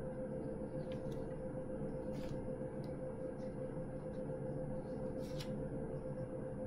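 Steady electrical hum with a fixed tone and a low background hiss, broken by a few faint clicks.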